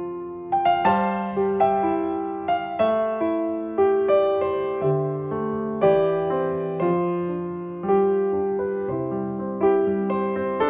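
Piano playing a slow, gentle passage of single notes and chords, each struck and left to fade, about one or two a second.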